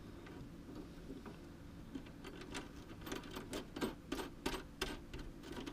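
Faint, irregular small clicks and rattles of a saddlebag lock being screwed in by hand, the clicks coming more often from about halfway through.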